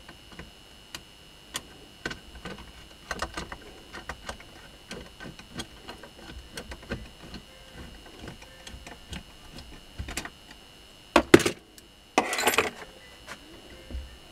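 Small metallic clicks and taps of a wrench working the end-bracket bolts of a washing-machine motor, then two louder metal clanks and rattles near the end as the motor's bracket is handled.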